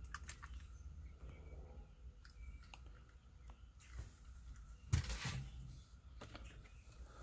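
Faint scattered clicks and light handling noises, with one louder brief rustle about five seconds in, over a low steady background.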